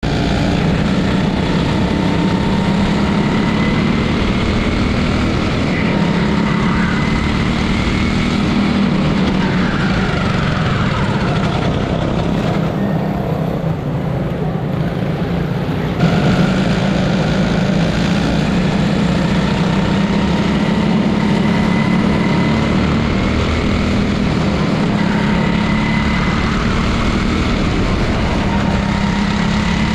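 Small single-cylinder engine of a quarter midget race car running at a steady speed, heard onboard from the car itself, with other cars' engines close alongside.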